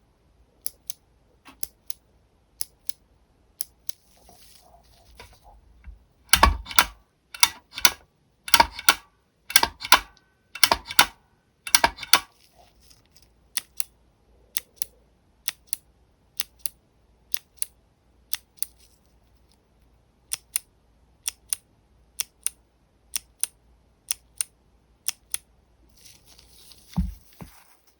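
Kailh Pale Blue clicky switches: a standard-size switch clicking sharply about once a second, and, from about six seconds in, the giant NovelKeys x Kailh Big Switch with a keycap pressed and released about six times, each stroke a much louder, deeper double clack. A low thump with some rustling near the end.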